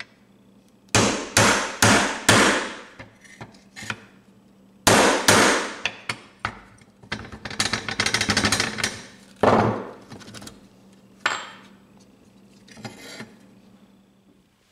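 A hammer striking a steel pin punch to drive the rivets out of a corn knife's old wooden handle. The blows are sharp and metallic and come in groups: four quick blows about a second in, another group around five seconds, a fast run of taps in the middle, then a few single blows near the end.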